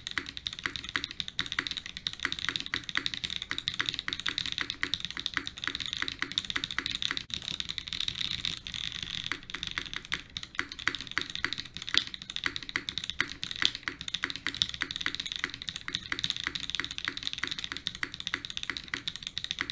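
Continuous typing on a Bulwark TKL mechanical keyboard with Mode Designs Obscura linear switches on an FR4 plate, built without case foam: a fast, steady stream of keystrokes.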